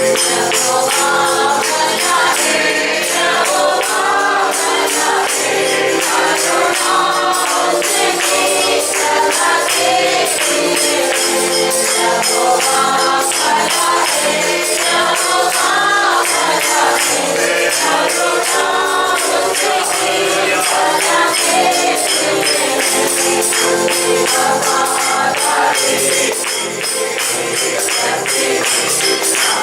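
A group of voices singing a Hindi worship song, with a tambourine shaken to a steady beat.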